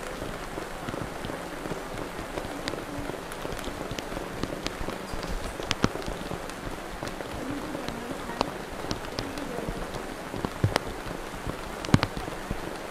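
Steady rain falling, an even hiss dotted with scattered sharp taps of single drops.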